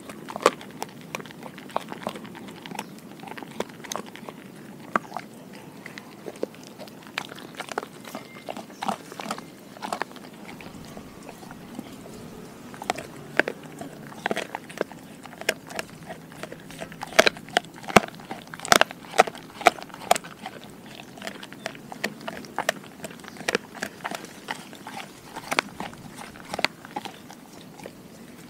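A Doberman gnawing on a piece of raw food held between her paws, with irregular sharp crunches and snaps that come thickest and loudest about two-thirds of the way through.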